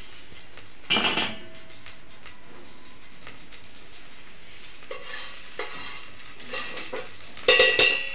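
Cumin seeds sizzling steadily in hot ghee in a stainless steel pot, with a metal spoon stirring them: a sharp ringing clink of spoon on pot about a second in, lighter scrapes and taps in the middle, and another loud ringing clink near the end.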